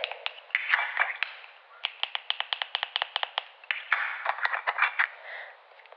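A homemade fidget toy being handled: a run of quick light clicks and taps, with soft rustling in between.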